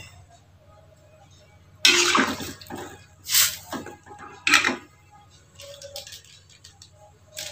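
A metal spatula stirring tempeh pieces through water in a wok, with short splashing swishes of liquid about two, three and a half, and four and a half seconds in.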